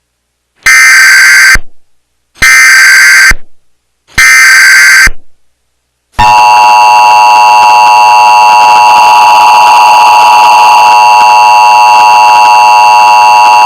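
Emergency Alert System test tones: three short, harsh bursts of SAME header data tones, each just under a second long, then about six seconds in the steady two-tone EAS attention signal starts and holds loud and unbroken.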